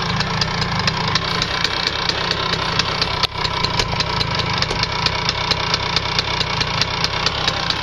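2008 Tomos Sprint moped's small two-stroke single-cylinder engine idling steadily, with a rapid, even ticking.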